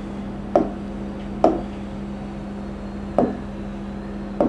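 Four light taps of a hand on an interactive whiteboard screen, irregularly spaced, over a steady low electrical hum.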